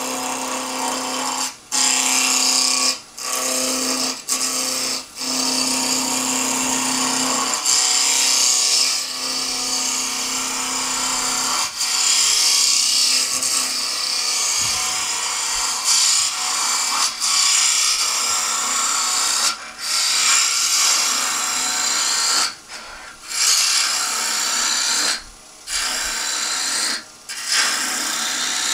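A wood lathe spins a small spindle blank while a gouge cuts it, making a steady, hissy cutting sound. The cutting breaks off briefly several times as the tool is lifted from the wood.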